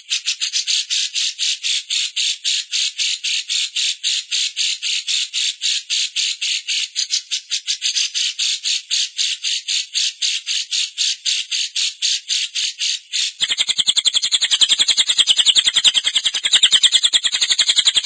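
Masteran training recording of a rapid, evenly repeated high-pitched chattering call, about five notes a second. About thirteen seconds in it changes to a faster, denser trill.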